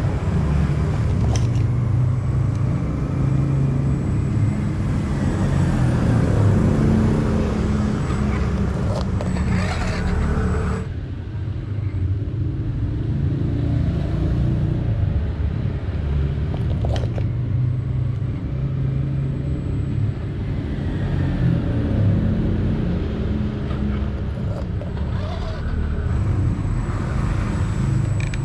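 Electric motor and gear drive of an Injora four-wheel-steering RC rock crawler running, the whine rising and falling with the throttle as it crawls over concrete steps, with a few short knocks of tyres and chassis on the concrete.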